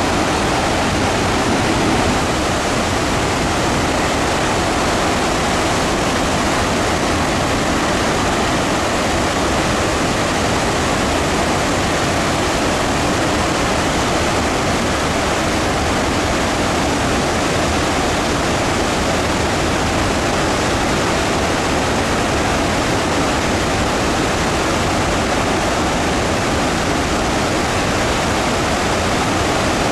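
Victoria Falls, the Zambezi River pouring over a wide rock lip into the gorge: a loud, steady rush of falling water.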